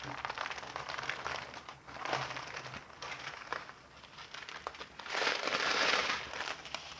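Plastic crinkling as a long strip of sealed clear bags of diamond painting drills is unfolded and handled. The crinkling is loudest for about a second around five seconds in.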